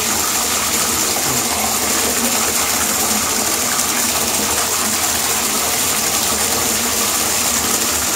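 Bathtub tap running steadily, water pouring into a shallow pool in the tub.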